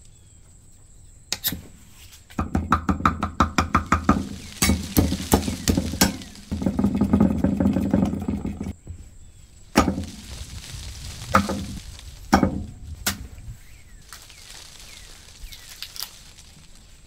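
Food being handled and cut: a quick run of knocks at about seven a second, a couple of seconds of dense scraping and rustling, then a few separate sharp knocks.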